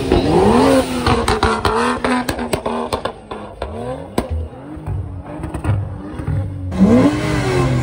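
Modified car engines revving hard, the pitch sweeping quickly upward, with a rapid string of sharp exhaust pops from about two to four seconds in and another rising rev near the end.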